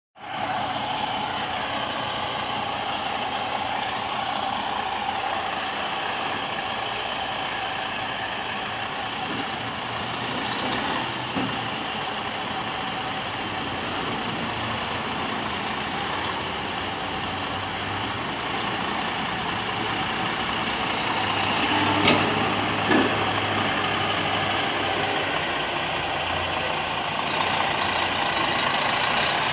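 Semi-truck diesel engine running at low revs as the tractor-trailer manoeuvres slowly with a container trailer. Two brief sharp sounds come about three-quarters of the way through.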